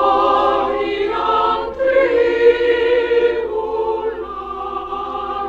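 Choir singing slow, sustained chords of sacred music, the chords changing every second or two.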